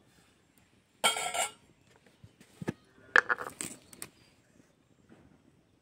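Steel spoon clanking against an iron kadai and other metal cookware: one loud ringing clank about a second in, then a few lighter clinks and knocks around three to four seconds in.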